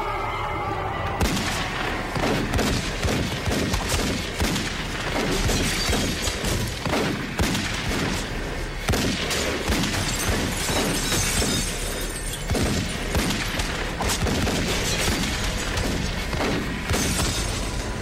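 A dense, irregular run of loud bangs and crashes, about a second in and continuing throughout: gunfire and smashing in a violent action scene, with music underneath.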